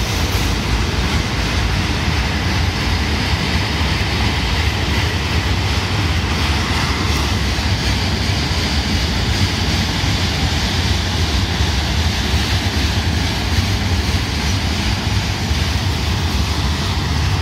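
Freight cars of a Norfolk Southern rail train, rack flatcars loaded with long welded rail, rolling past: a steady, unbroken rumble of steel wheels on the track.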